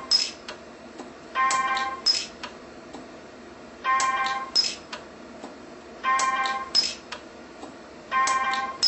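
Orion 150s pulse arc micro TIG welder firing repeated spot welds that add fill wire to a steel knife edge. Each weld gives a short tone followed by a few sharp cracks, about every two seconds.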